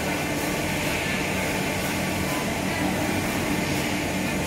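Steady hum of running high-pressure processing plant machinery: a low drone holding a few fixed tones under a constant hiss.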